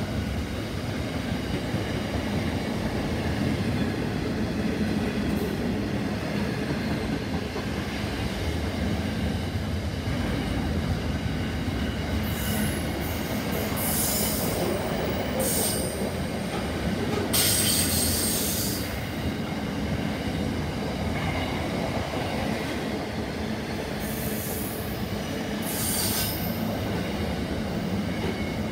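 Container wagons of a long freight train rolling past with a steady rumble. Bursts of high-pitched squealing come from the running gear in the second half, the loudest about two-thirds of the way through.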